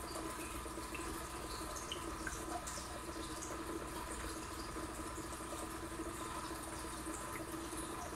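Aquarium filter running: a steady trickle of moving water over a low constant hum, with scattered small drips and bubble pops.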